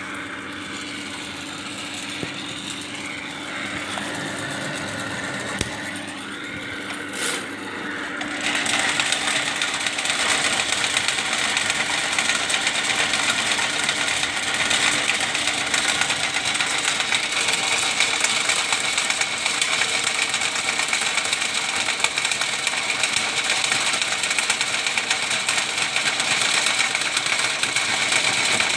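Ridgid drain-cleaning machine running, feeding its steel spiral cable through a drain pipe to clear a clog. The cable scrapes and rattles. About eight seconds in, the noise steps up and turns harsher and brighter, then holds steady.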